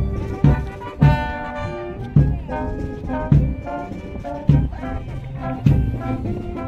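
Brass band music, trombones and trumpets over a heavy drum beat that falls a little more than once a second.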